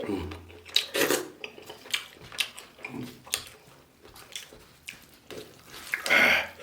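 A person chewing and eating food close to the microphone: irregular wet chewing and mouth sounds with small clinks of dishes, and a louder noise near the end.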